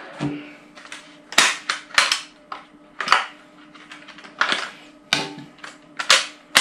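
Newest-model Paslode cordless gas nailer test-fired: a series of sharp cracks about a second apart, over the steady hum of its combustion fan, which starts about a quarter second in.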